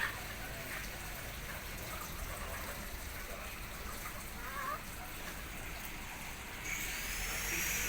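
Steady hiss of rain, with a couple of faint chicken calls. Near the end a high, steady whine comes in and continues.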